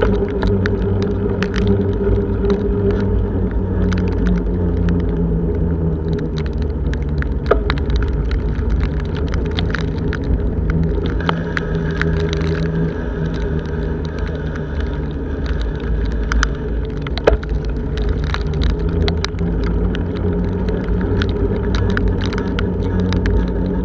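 Rumble and wind noise picked up by a bicycle-mounted camera riding along a wet road: a dense, steady low roar with a faint hum, and scattered sharp ticks throughout.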